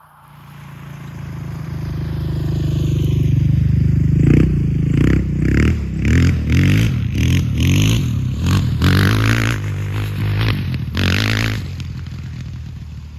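Honda TRX450 quad's four-stroke engine revving: it builds up over the first few seconds, then runs through a quick series of throttle surges, under two a second, and cuts off abruptly at the end.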